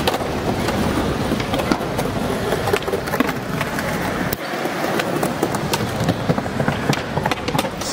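Skateboards rolling over stone paving, wheels rumbling with irregular sharp clacks of boards and trucks, over a steady busy outdoor hubbub.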